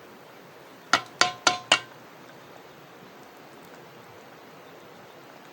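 Four quick clinks of something hard, likely metal, struck about a quarter second apart, each with a short ringing tone.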